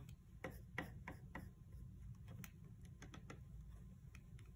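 Faint, irregular clicks and taps of a paintbrush working water into the black cake of a plastic watercolour pan set, clustered in the first second and a half and again around three seconds in, over a low hum.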